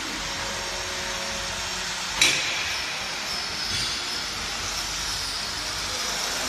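Steady workshop background noise, with a single sharp metal clank that rings on briefly a little after two seconds in.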